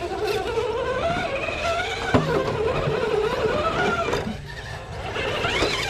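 Electric motor and gearbox of an RC rock crawler whining as it climbs over rocks, the pitch rising and falling with the throttle. There is a sharp knock about two seconds in, and a quick rise in pitch near the end as the throttle is opened.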